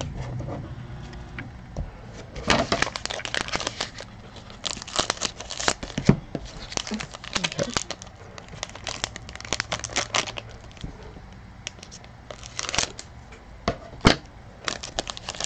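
Foil trading-card pack wrapper crinkling and crackling in short spells as it is handled and cut open with scissors.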